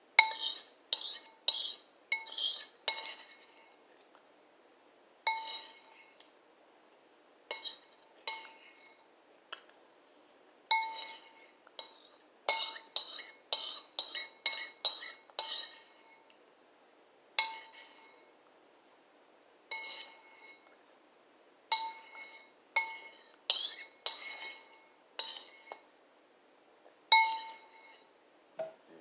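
A spoon clinking and scraping against a bowl while scooping ice cream, in irregular runs of quick clinks with pauses between. Each strike leaves the bowl ringing briefly.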